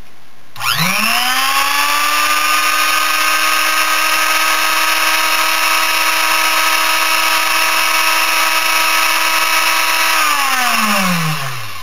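The older spindle motor of a Sable-2015 hobby mini CNC mill, run free with no cut, giving a loud high whine. It spins up with a rising whine under a second in, runs steadily, then winds down with a falling whine from about ten seconds in. This is the old, noisy spindle, around 80 dB at 50 cm.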